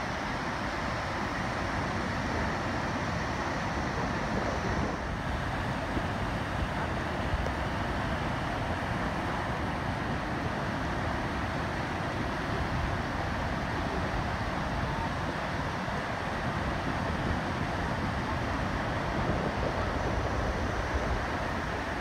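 Steady surf: small waves breaking and washing up onto a sand beach, with wind rumbling on the microphone.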